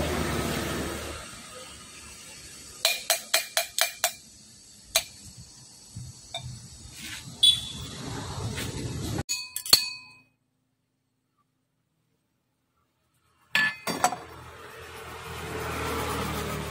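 Stainless steel tumblers clinking while a drink is mixed: a quick run of about six ringing metallic clinks, then scattered single clinks and taps, a few seconds of dead silence, and a couple more clinks.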